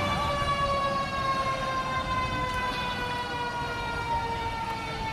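Emergency vehicle siren sounding one long wail: it peaks right at the start, then slowly falls in pitch.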